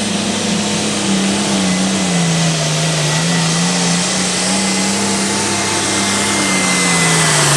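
Turbocharged Farmall 1206 diesel pull tractor running hard under load as it drags the sled, its pitch wavering, then dropping near the end as the engine is pulled down. A thin, steady high whine sits over the engine.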